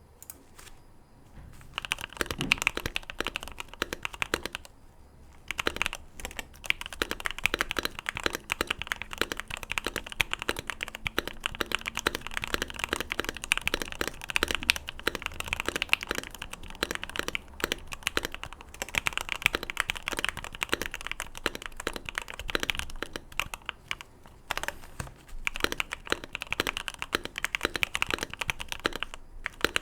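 Typing on a modded Keychron Q1 gasket-mounted mechanical keyboard, with Gateron Milky Black linear switches on the letters and Boba U4T tactiles on the other keys. The board is dampened by a tape mod on the PCB, PE foam in the case and a force break mod. The fast run of keystroke clacks begins about two seconds in and pauses briefly twice.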